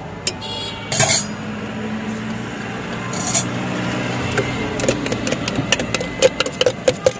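Metal spoon scraping and clinking against a stainless-steel jar. Over the second half it turns into a quick, evenly spaced run of clinks.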